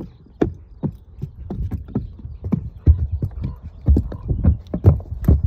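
A horse's shod hooves clopping on the wooden planks and matted ramp of an elevated bridge obstacle as it is led across at a walk, mixed with the handler's boot steps. The irregular knocks grow louder and closer together in the second half.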